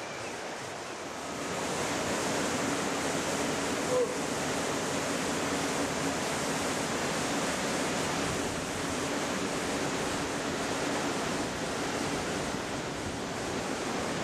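River water rushing over rapids, a steady rush that gets louder about a second and a half in.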